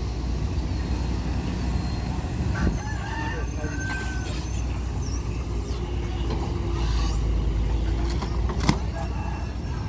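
Caterpillar 320D long-arm excavator's diesel engine running steadily with a low rumble as the arm swings and the bucket works through floating garbage and weeds. A single sharp knock stands out near the end.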